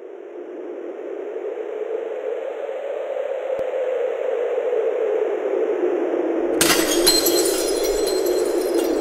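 Intro sound effects: a long whooshing rush of noise that swells steadily, then a sudden glass-shattering crash about six and a half seconds in, with tinkling shards and a faint ringing tone. The rush cuts off just before the end.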